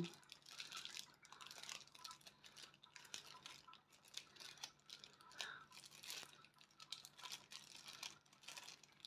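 Faint crinkling of plastic packaging with small irregular clicks and taps, as small diamond-painting accessories are handled.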